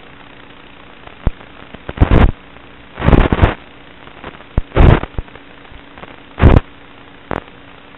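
Onboard audio from a fixed-wing FPV plane: a faint steady hum broken by about six loud, sharp bursts of crackling noise, some short and some lasting about half a second.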